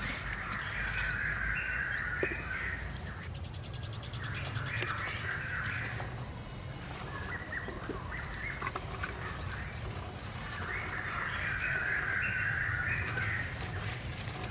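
Harsh bird calls in four bursts of two to three seconds each, over faint scraping and a few light knocks of a stick digging in dry soil.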